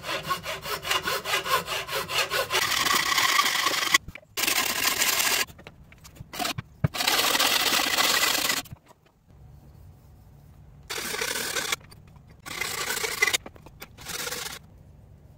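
Shop-made frame saw with a 10 tpi metal-cutting band saw blade ripping pine along the grain. Quick, even push-pull strokes at first, then the sawing comes in several separate spells with short breaks between them.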